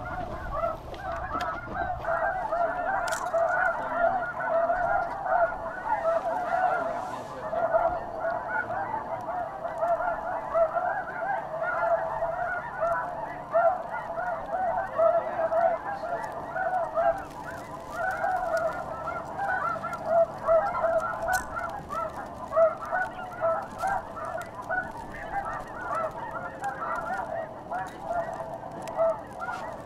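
A dense chorus of snow goose calls: many short, high yelping honks overlapping without a break, at an even level.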